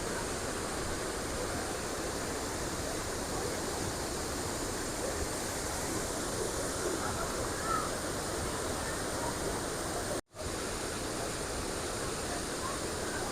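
Waterfall: steady rushing and splashing of falling water. The sound cuts out completely for a split second about ten seconds in.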